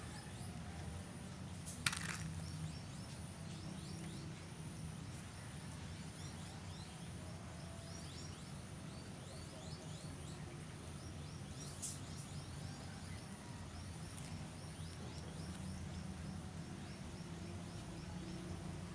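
Outdoor ambience by a pond: many small high chirps repeating throughout over a steady high tone and a low hum, with two sharp clicks, one about two seconds in and one near the middle.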